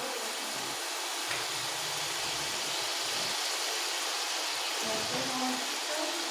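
Potatoes and chopped tomatoes frying in oil in a large aluminium pot, a steady sizzle.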